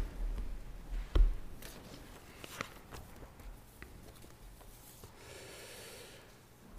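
A heavy book set down on a wooden lectern with two low thumps, then a few light knocks and paper rustling as sheets are handled and laid out.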